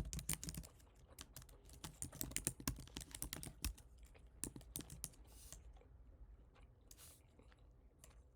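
Typing on a computer keyboard: a quick, dense run of key clicks for the first four seconds or so, then scattered keystrokes.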